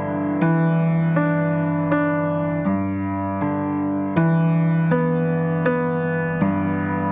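Keyboard music with a piano-like tone: sustained chords, a new one struck about every three quarters of a second.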